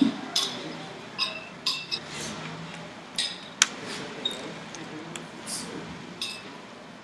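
Blender jar and utensil clinking and knocking against small ceramic bowls as the jar is emptied: about nine irregular sharp clinks with a short ring, the loudest about three and a half seconds in.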